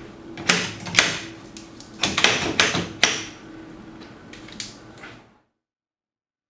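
A masonry drill bit being pushed into a rotary hammer drill's chuck and locked in: a string of sharp clicks and knocks, loudest in the first three seconds, stopping a little past five seconds in.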